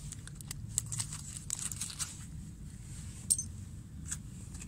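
Iron nails clicking and clinking as they are pulled off a fishing magnet and handled, with one sharper clink about three seconds in.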